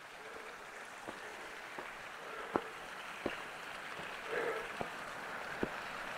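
Footsteps crunching on a gravel and dirt trail while walking uphill, a short step sound about every three-quarters of a second, over a steady rushing hiss.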